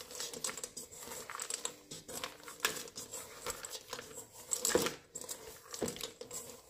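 Hands folding chocolate chunks into soft cookie dough in a mixing bowl: irregular clicks and rustling as the chunks and dough are worked against the bowl, the loudest click a little before five seconds in.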